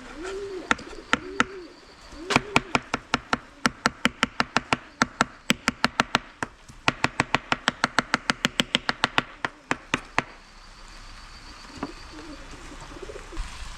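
Knife chopping on a cutting board in quick, even strokes, about five a second with short breaks, stopping about ten seconds in. A dove coos at the start and again near the end.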